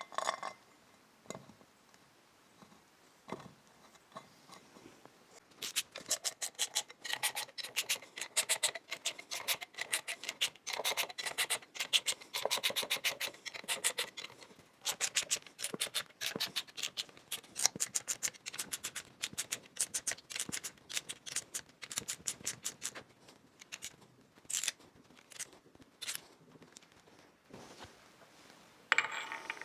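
Fast runs of sharp metallic clicks from hand work on the motor parts, starting about five seconds in and thinning out to scattered single clicks near the end.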